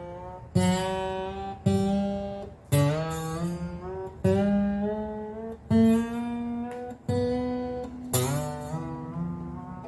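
Taylor 214CE steel-string acoustic guitar being played: about seven chords struck one after another, each let ring, with a few notes sliding up in pitch.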